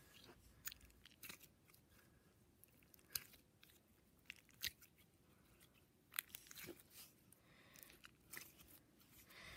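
Slime being squished and pressed by hand, giving faint, irregular clicks and small pops.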